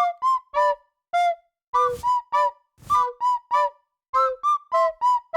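Background music: a bouncy melody of short, separate flute-like notes, about three a second with brief pauses, with two noisy hits around two and three seconds in.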